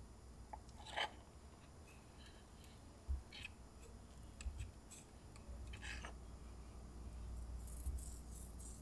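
Butter knife spreading cultured butter onto a seeded crispbread: a few short, quiet scrapes about one, three and a half and six seconds in, with soft crackling near the end.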